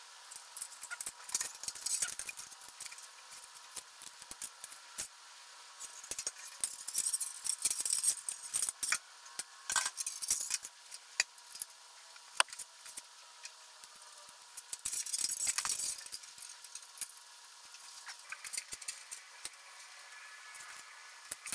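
Irregular light metallic clicks, taps and scrapes as a brake line is handled and bent with a hand tube bender over the rear axle, with a longer rustling scrape about two thirds of the way through.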